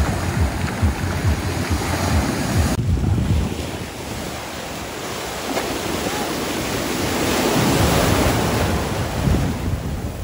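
Sea surf washing onto a beach, with wind buffeting the microphone in the first few seconds. About three seconds in the sound changes suddenly, then a wave builds and breaks, loudest about three-quarters of the way through, then recedes.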